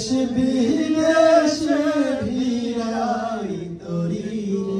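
A man singing into a handheld microphone, holding long drawn-out notes that slide slowly up and down.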